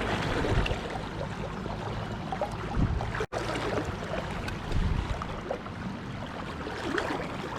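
Steady rush of flowing stream water with a low rumble underneath and a few soft knocks and splashes. The sound cuts out for an instant a little after three seconds.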